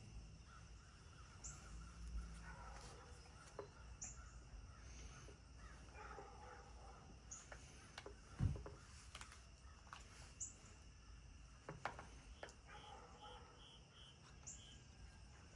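Quiet handling of a fish-finder transducer cable plug while its locking collar is fitted: scattered faint clicks and taps, with one dull thump about eight seconds in. Faint short bird chirps come every few seconds in the background.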